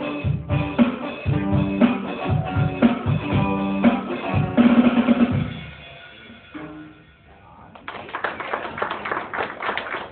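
Live band, electric guitar and drum kit, playing the last bars of a song; the music breaks off about five and a half seconds in and rings away. About eight seconds in, clapping starts.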